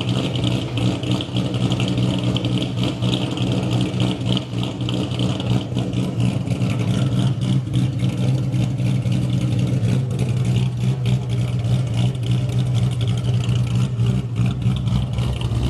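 Cammed 4.6-litre two-valve V8 of a New Edge Ford Mustang GT, fitted with Stage 3 Comp Cams camshafts, idling steadily with an uneven, pulsing beat and no revving.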